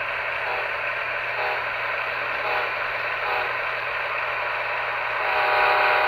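Model train running along the track with a steady rolling whir. About five seconds in, the model diesel's horn starts blowing a sustained chord and keeps going.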